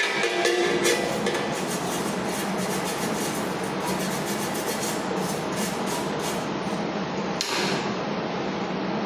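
Stick-welding arc crackling steadily as the electrode burns, with a brief sharper hiss about seven and a half seconds in.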